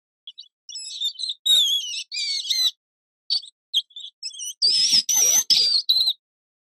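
Small rodent squeaking: high, quavering squeaks in irregular clusters with short silent gaps, the loudest and densest run about two-thirds of the way through.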